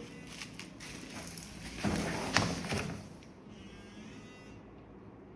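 Packaging rustling as it is handled, loudest about two seconds in. Then a mobile phone vibrating: buzzes of about a second each, separated by short gaps, starting about three seconds in.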